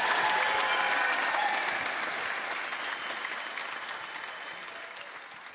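Audience applause, with a few cheers over it at first, steadily fading away.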